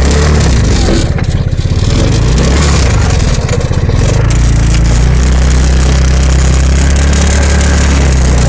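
Hammerhead GTS 150 buggy's GY6 150cc single-cylinder four-stroke engine running. It goes unevenly for the first few seconds, dipping twice, then holds a steady, fuller note from about four seconds in.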